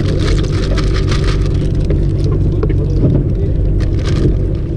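Fishing boat's engine running steadily with a low drone, with a hissing wash over it in the first second or so.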